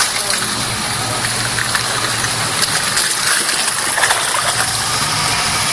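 Truck engine running steadily under a loud, continuous rushing noise while driving.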